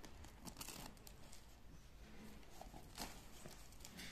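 Faint rustling and scraping of a cardboard parcel and its packing tape being cut and peeled open by hand, with scattered small clicks and one sharper tick about three seconds in.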